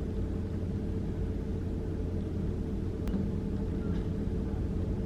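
Car engine running at a steady low hum, heard from inside the cabin, with one faint click about three seconds in.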